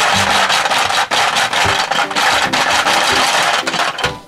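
Plastic Hungry Hungry Hippos game clattering fast and loud as the hippo levers are hammered and the hippo heads snap in and out, knocking the small toy cars around the board. The clatter dips for a moment just before the end.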